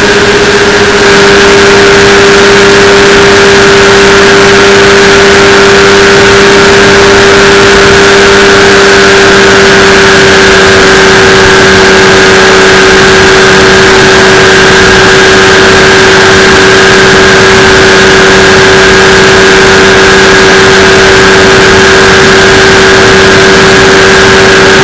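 Powered parachute engine and propeller running steadily in cruise flight: a very loud, unbroken drone that holds a constant pitch.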